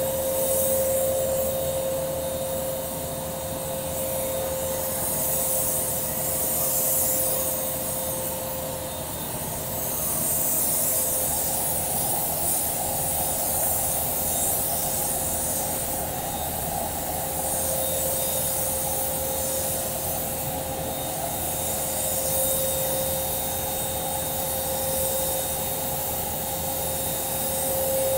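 A small electric blower motor running steadily: a constant whine over a hiss of rushing air, easing briefly about ten seconds in.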